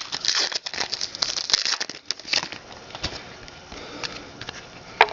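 Foil wrapper of a hockey trading-card pack crinkling as it is handled, for the first couple of seconds, then quieter handling of the cards with light clicks and one sharp click near the end.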